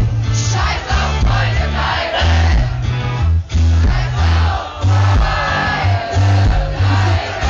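Pop-rock band playing live with singing, heard from within the audience: loud bass and drums under the vocals, with a short break in the music about halfway through.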